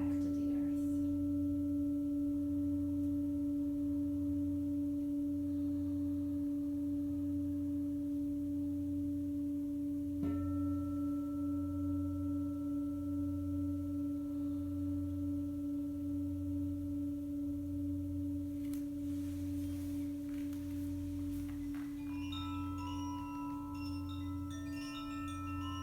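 Tibetan singing bowl ringing in one steady tone with a slowly pulsing low hum beneath it, struck again about ten seconds in. Near the end, chimes start tinkling in many short high notes.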